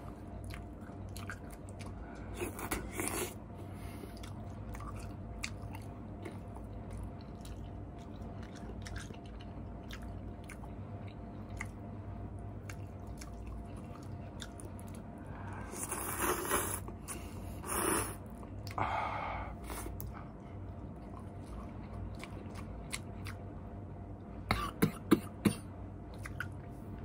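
Close-up chewing and slurping of instant noodles with fish balls, in scattered bursts, with a few sharp loud clicks a couple of seconds before the end.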